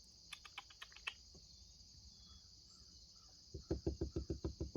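A steady, high-pitched insect chorus. It is joined by a few faint ticks about half a second in, and near the end by a rapid run of about ten short clicks, which are the loudest sound.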